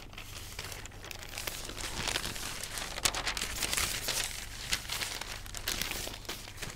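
Newspaper pages rustling and crinkling as they are handled, with many small sharp crackles.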